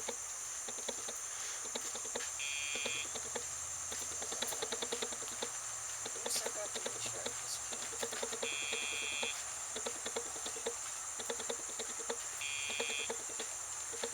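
Three short electronic beeps from the dog's training-collar beeper, each under a second and spaced several seconds apart. Under them is a steady high insect drone and scattered light ticking.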